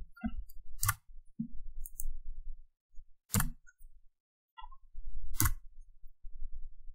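Three sharp clicks about two and a half seconds apart, from a computer mouse and keyboard worked at a desk, over a faint intermittent low rumble.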